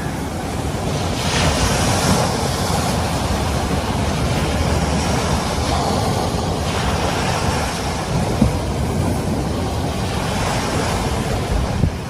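Sea waves washing onto a shingle beach, swelling about a second in and again near the end, with wind rumbling on the microphone.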